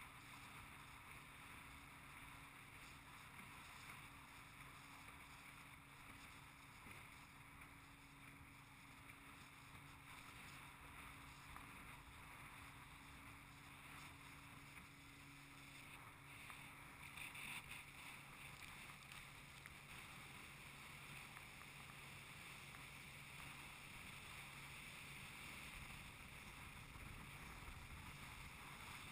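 Faint, steady hum of a motorboat running across choppy water, with water rushing along the hull. There is a brief louder rush about 17 seconds in.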